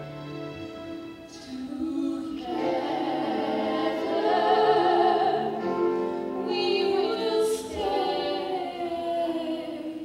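Two women's voices singing a stage-musical song together, holding long notes over several stacked pitches.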